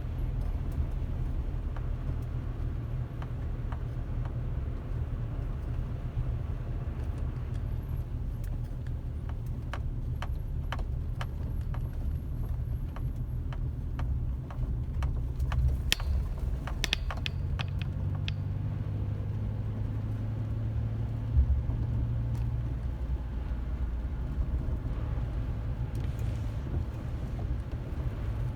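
Steady low rumble of a car on the move, with a scatter of sharp clicks and ticks through the middle.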